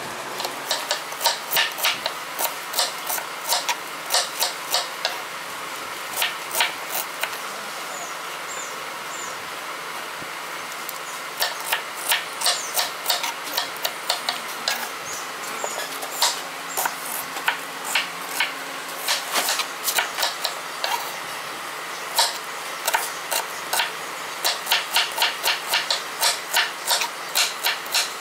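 Kitchen knife chopping onions on a wooden chopping board: runs of sharp knocks, several a second, as the blade strikes the board, with a longer pause around the middle.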